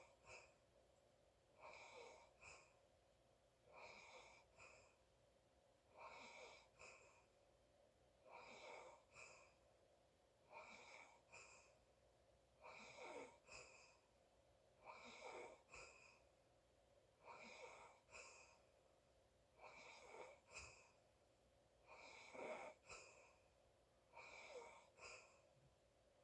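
Faint, light snoring breaths of a sleeping person, about one every two seconds, each a longer sound followed at once by a short second one.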